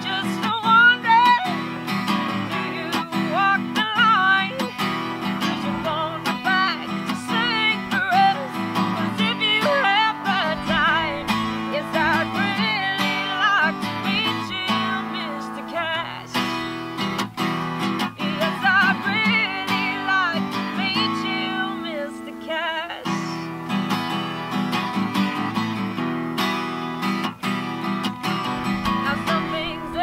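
A woman singing to her own strummed acoustic guitar, with short stretches of guitar alone between sung lines.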